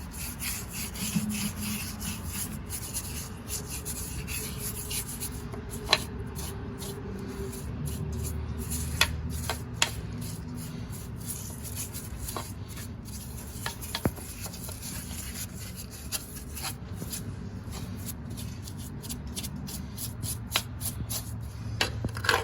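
Steady rubbing and scrubbing as a greasy lathe gear case is cleaned by hand, with a few sharp light clicks scattered through it.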